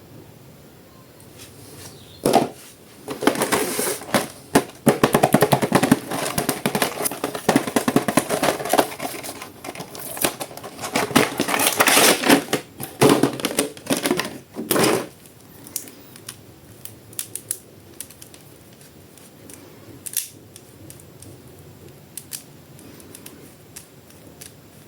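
Plastic toy packaging and action figures being handled: crinkling, rustling and rapid clicks for most of the first fifteen seconds, then only scattered clicks.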